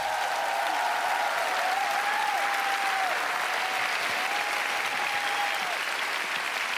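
Studio audience applauding steadily, with a drawn-out cheer rising and falling in pitch over the clapping until near the end.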